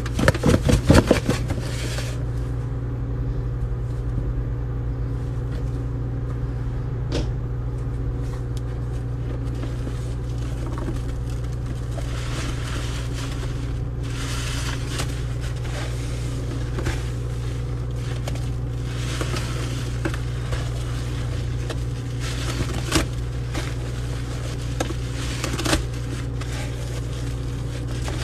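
Steady low background hum, with a few sharp knocks about a second in as powder is shaken out of a cardboard box onto a sponge, then faint rustling and scraping as the sponge is worked into foamy paste against the basin.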